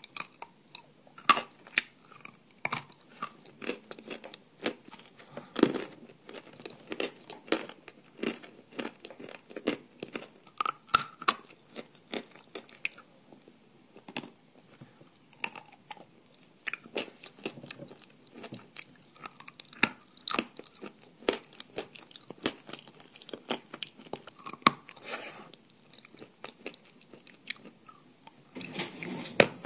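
Close-up chewing and crunching of dry edible clay, with many sharp, irregular crunches.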